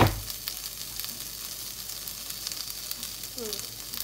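Pieces of fermented pork belly (naem sam chan) sizzling in a lightly oiled non-stick frying pan: a steady hiss with scattered crackles of spitting fat. A single sharp knock at the very start is the loudest sound.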